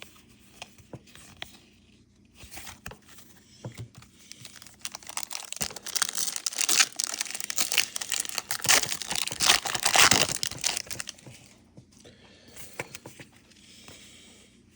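Foil Pokémon booster pack wrapper being torn open and crinkled. The crinkling builds over a few seconds, is loudest about halfway through, then dies away.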